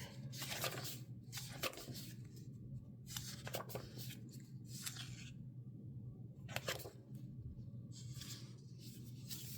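Paper being handled: a series of short rustles and scrapes as sticker-book pages and stickers are picked through.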